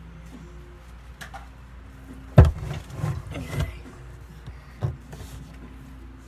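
Handling noise from the recording phone: a sudden thump a little over two seconds in, then about a second of scuffing and rubbing, and one short knock later.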